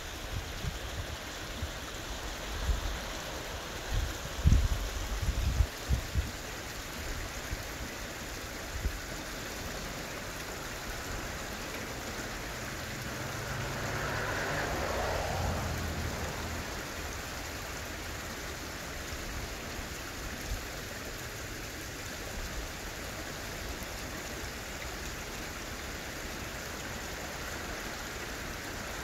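Steady outdoor hiss of wind and water with no bird call heard. There are low thumps on the microphone in the first six seconds, and a low hum swells and fades about halfway through.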